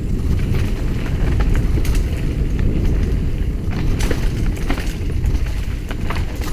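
Mountain bike descending rough single track: a heavy rumble of wind and trail vibration on a helmet-mounted GoPro, with the bike rattling and clicking over bumps, sharp knocks about two and four seconds in.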